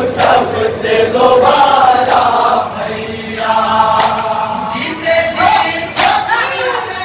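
A group of men chanting a noha (Shia lament) together in unison, with a sharp slap of chest-beating (matam) about every two seconds.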